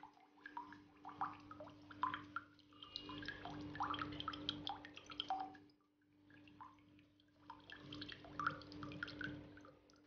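Coconut water dripping and trickling from a hole bored through one of the coconut's eyes into a glass. The drips fall in irregular runs, pausing briefly about six seconds in.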